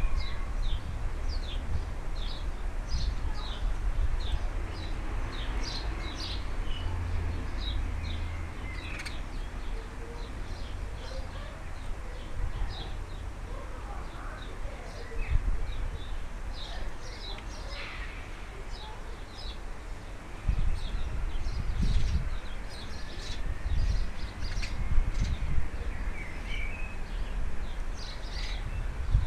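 Small birds chirping with many short, quick calls, repeated over and over, with a few longer notes. Under them is a low rumble that grows louder about two-thirds of the way in.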